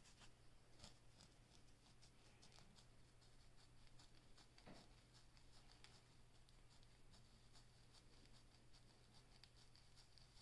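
Faint, quick scratching of fingernails and a fine-tooth comb scraping through short hair on a dandruff-covered scalp, several strokes a second.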